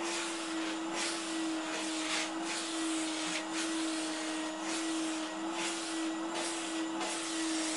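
Vacuum cleaner running with a steady hum while its wand nozzle is stroked over a dog's coat, the suction hiss swelling briefly and irregularly with the strokes.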